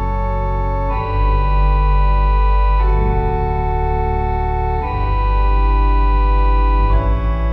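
Organ playing slow, sustained chords over a deep pedal bass, the chord changing about every two seconds.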